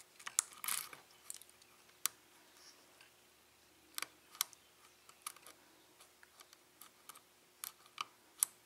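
Lock pick scraping and clicking inside the keyway of an ASSA Abloy SCD six-pin lock as it is worked toward the back pins: a short scrape near the start, then scattered small sharp clicks, a few close pairs among them.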